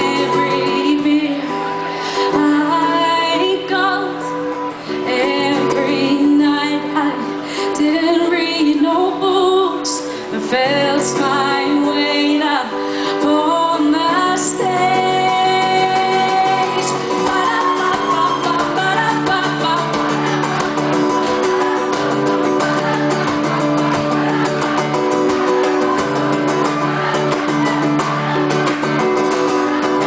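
A woman singing live to her own strummed acoustic guitar, heard through the PA. Her wordless sung lines fill roughly the first half, then the guitar strumming carries on with little or no voice.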